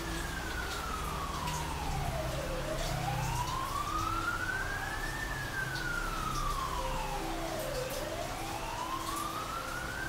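A siren wailing, its pitch rising and falling slowly, one full rise and fall about every five seconds, over a steady hiss.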